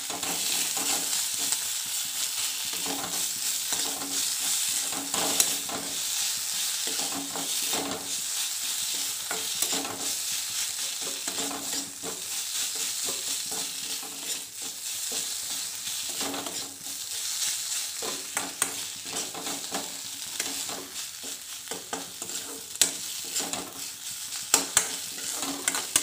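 Fish, onion, ginger, garlic and green chilli frying in oil in a kadai, sizzling steadily while a metal spoon stirs and scrapes through the mixture. A few sharp clinks of the spoon against the pan, most of them near the end.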